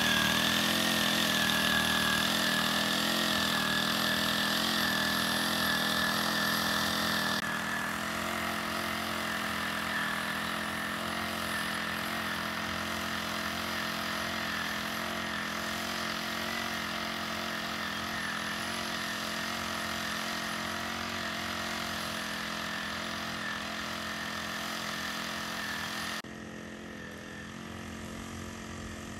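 Walk-behind mini rice transplanter's small engine running at a steady speed while the machine plants seedlings in a flooded paddy. It grows quieter as the machine moves away, with an abrupt drop in level near the end.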